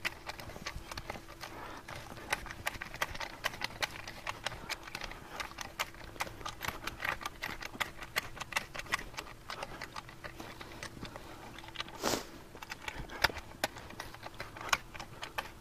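Action hoe's pivoting stirrup blade scraping back and forth through soil, grass roots and dry mulch, a steady run of small irregular crunches and scratches, with one louder scrape near the end.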